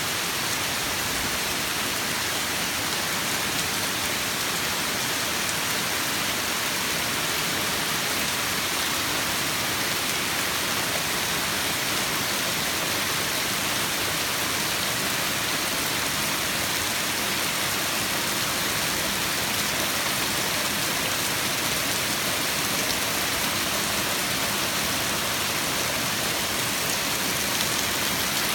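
Heavy rain falling steadily on paving, lawn and leaves: a dense, even hiss that holds at one level throughout.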